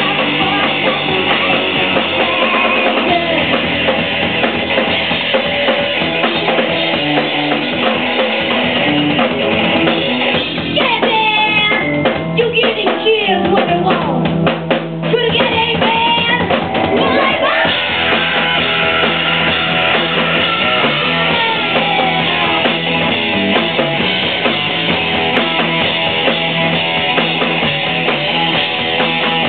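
A rock band playing live, with electric guitar and drum kit. About halfway through comes a stretch of rapid drum hits with sliding tones, and then the full band carries on.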